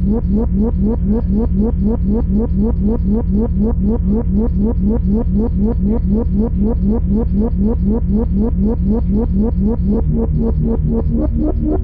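Improvised ambient instrumental music: a fast, evenly repeating upward-sliding figure, about five a second, over a steady low drone, with held higher notes coming in near the end.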